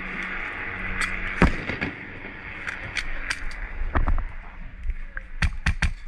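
Sharp pops of airsoft gunfire: a few scattered shots, then a quick irregular run of them near the end.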